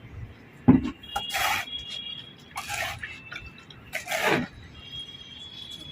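A knock, then three short swishes of liquid sloshing in a container, about a second and a half apart.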